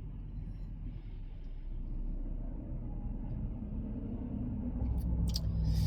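Low steady rumble, with a few crisp crunches near the end from biting and chewing a lettuce-leaf taco.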